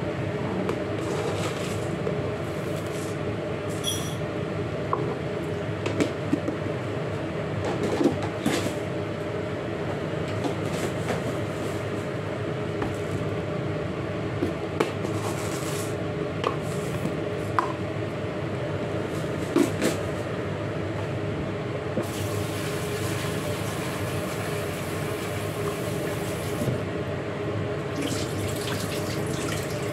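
Dry rice scooped from a plastic storage container with a plastic measuring cup, with scattered knocks and rattles of the containers and bowl, over a steady background hum.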